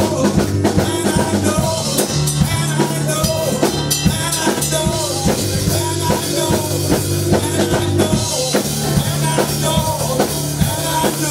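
Live church praise music: a drum kit playing a steady beat over sustained low notes, with a voice singing over it.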